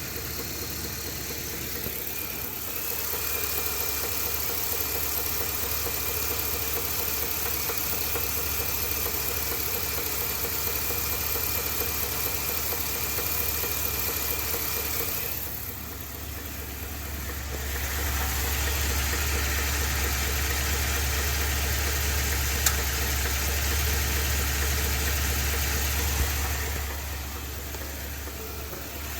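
Ford F-250's 7.3-litre Godzilla gas V8 running with a bad internal engine noise that an oil pump replacement has not cured. A thin high whine sits over the engine through the first half, and the level dips briefly past halfway before coming back up.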